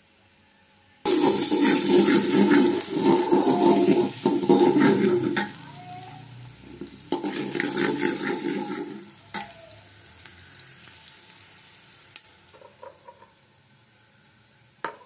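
Sliced onions frying in an aluminium pot while a metal ladle stirs them, sizzling and scraping. It comes in two loud bouts, about four seconds and then about two, after which it dies down.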